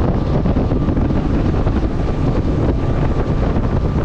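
Wind buffeting the microphone aboard a boat underway, over the steady low rumble of the boat running, with a faint steady whine.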